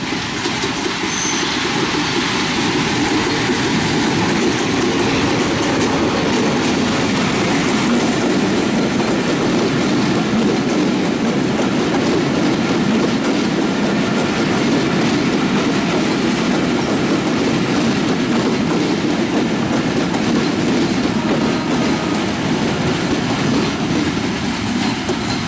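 Passenger train passing close by: an ALCO diesel locomotive followed by a long string of coaches, with a steady loud rumble and clatter of wheels on the rails.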